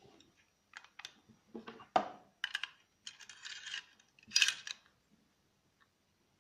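Metal clicks and rattles from a Powerfix Profi hand tacker's staple magazine being worked by hand. Several sharp clicks come first, then a scraping rattle as the spring-loaded pusher rod is slid out of the magazine, then a loud cluster of metal clacks.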